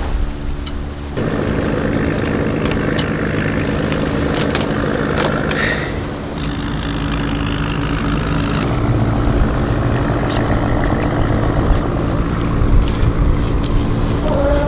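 A steady low motor hum with a rushing wash of noise over it, the noise growing louder about a second in.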